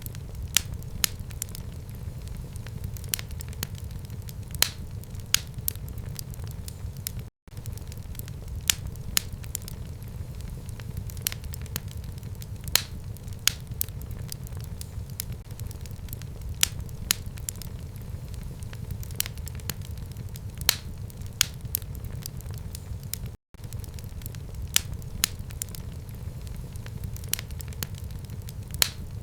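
Wood fire burning in a home fireplace: a steady low rumble of flame with frequent, irregular sharp crackles and pops. The sound cuts out for an instant twice.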